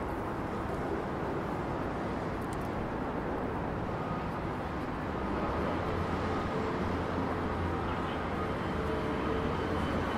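City street ambience: steady traffic noise with a low engine hum underneath.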